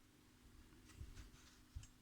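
Near silence, with a few faint light clicks about a second in and again near the end.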